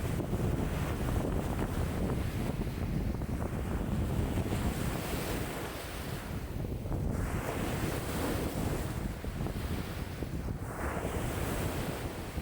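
Wind-driven lake waves splashing and breaking on the shore, with a steady low rumble of wind buffeting the microphone. Two waves wash in with a brighter hiss, about seven and eleven seconds in.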